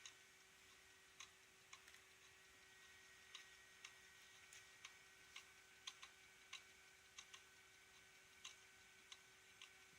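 Failing hard disk drive clicking, with sharp irregular ticks about one or two a second over the drive's steady faint hum. The clicks come with climbing hardware ECC errors and fast-rising reallocated sectors: the drive is failing.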